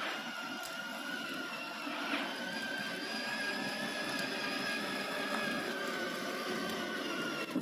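Electric motor of a battery-powered ride-on toy car whining steadily as it drives, its plastic wheels rolling and rattling over stone paving. The sound cuts off suddenly at the end.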